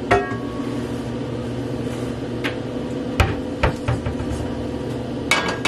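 Scattered sharp knocks and clatter of cookware being handled in a kitchen, about five separate knocks and then a quick cluster near the end, over a steady electrical hum.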